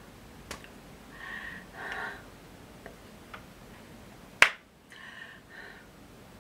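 A sign-language storyteller's hand movements make a few faint clicks and one sharp, loud slap about four and a half seconds in. Short wordless vocal sounds come from her mouth as she signs, once before the slap and once after it.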